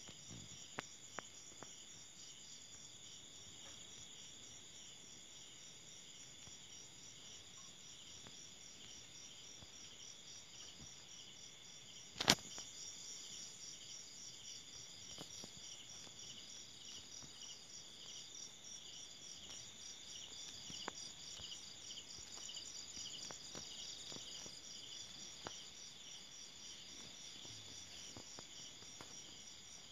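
Crickets and other night insects calling together in a steady, fast-pulsing trill. A few faint clicks are heard, and one sharp click comes about twelve seconds in.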